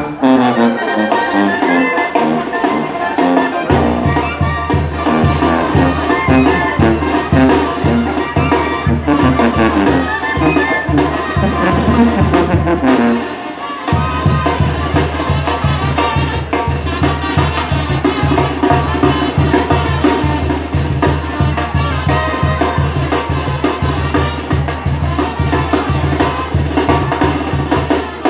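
Street brass band playing a lively tune with trumpets and trombones. A steady low beat comes in about four seconds in; the music drops out briefly about halfway through, then picks up again.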